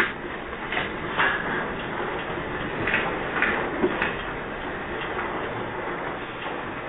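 Earthquake rumble with scattered rattles and clinks of shaking objects, picked up by a security camera's microphone.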